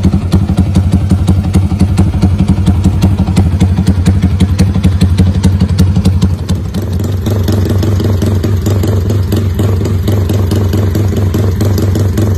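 Yamaha Y15ZR (MX King) 150 cc single-cylinder four-stroke idling through a non-standard aftermarket exhaust. It is tuned for a lumpy, pulsing 'rumble idle'. About halfway through, the sound changes abruptly to a steadier, smoother idle.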